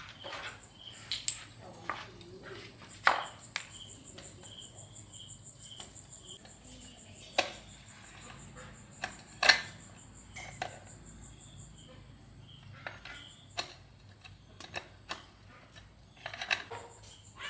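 Scattered sharp clicks and knocks, about a dozen, the loudest about 3 and 9.5 seconds in, from tools and parts being handled during a water pump repair. Under them runs a steady, pulsing high chirring of crickets.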